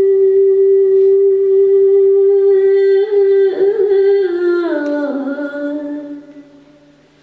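A woman's unaccompanied singing voice holds one long steady note. About three and a half seconds in it wavers through an ornamented turn, slides down to a lower note, and fades away near the end.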